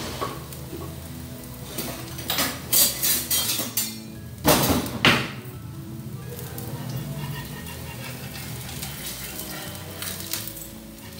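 Steel spatula clattering against metal utensils in two bursts, about two and four and a half seconds in, over steady background music.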